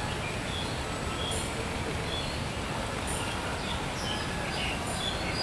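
Outdoor ambience: a steady low rumble with small birds chirping now and then, and a short high hiss recurring about every two seconds.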